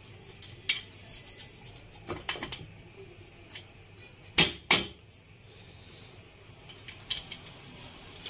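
Light metallic clicks and clinks as the kick-start shaft and its coiled return spring are worked into a Yamaha RX135 two-stroke crankcase by hand. The spring's end is levered into place. The two loudest clicks come close together about halfway through, with scattered smaller ones before and after.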